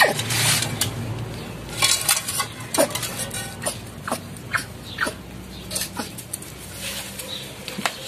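Mulita armadillo making its sounds: irregular sharp clicks, several with a short falling squeak, about one to three a second.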